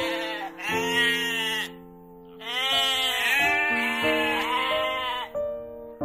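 Sheep bleating: three wavering bleats, the last one long, with a short pause before it. Background music with sustained notes plays underneath.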